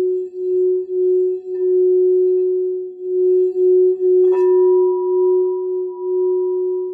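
Crystal singing bowl ringing with a steady low tone that swells and fades in a slow, wavering beat. About four seconds in, a sharp strike brings in a second, higher ringing tone over it.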